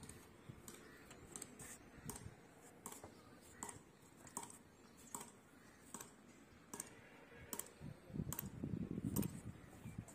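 A steady series of sharp clicks, about one every three-quarters of a second. Near the end comes a louder stretch of low rumbling noise.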